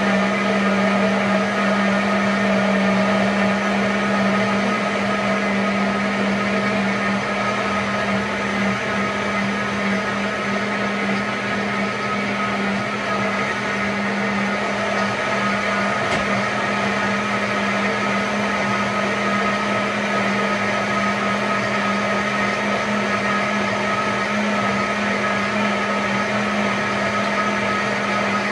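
High-speed countertop blender running at a steady speed on its timed hot program, blending carrot and beetroot in hot broth into a smooth juice. Constant motor hum with an even pitch.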